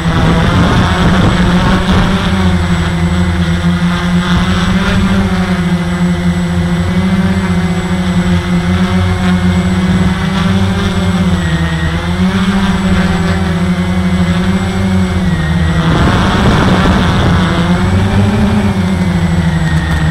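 Walkera QR X350 quadcopter's brushless motors and propellers buzzing in flight, picked up close by a camera mounted on the frame. The pitch wavers up and down as the throttle changes.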